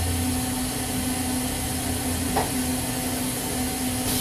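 Spindle of a Southwestern Industries ProtoTrak LPM vertical machining center running steadily through its warm-up cycle: a steady hum with two held tones over a hiss, and a single click about two and a half seconds in.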